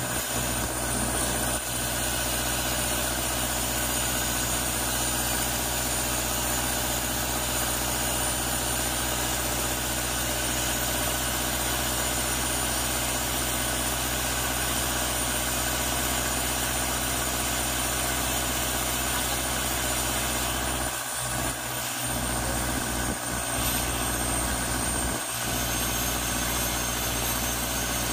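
Isuzu Trooper's 4JX1 four-cylinder turbodiesel engine running steadily.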